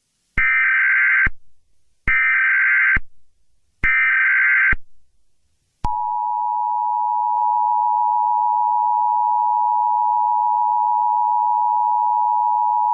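Emergency Alert System tones: three short bursts of SAME header data, each under a second, then the steady two-tone EAS attention signal (853 and 960 Hz together) starting about six seconds in and holding.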